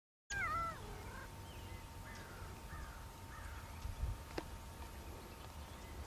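A loud, wavering, meow-like animal call, followed by a run of fainter arched call notes roughly every half second, with one sharp tap about four seconds in, over a steady low rumble.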